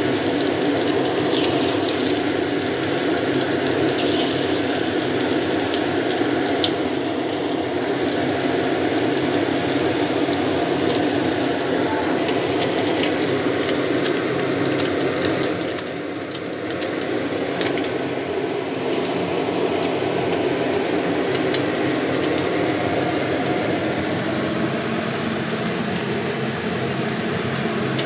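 Fish fillet pieces shallow-frying in hot oil in a pan: steady sizzling with many small crackles and pops.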